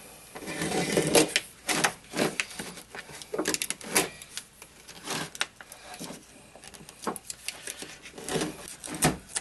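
Thin metallic foil tape crinkling and tearing as it is peeled off the back of an LCD panel, with scrapes and clicks of a screwdriver prying at the panel's metal edge. The sound is an uneven run of sharp crackles and clicks.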